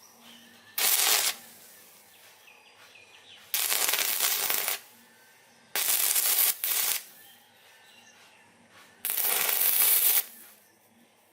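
Stick arc welding on a homemade welder powered by three 12 V batteries: the electrode strikes an arc four times, each a crackling hiss lasting from about half a second to just over a second and cutting off suddenly as the arc breaks.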